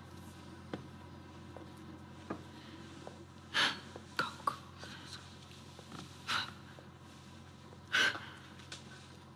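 A person's short, sharp gasping breaths, about four or five over the stretch, with a few faint clicks and a steady low hum between them.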